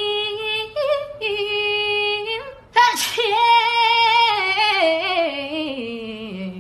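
A person's exaggerated, sung-out sneeze. A high voice holds a drawn-out note twice as the sneeze builds. About three seconds in comes a sudden sharp sneeze burst, which trails into a long wail sliding down in steps.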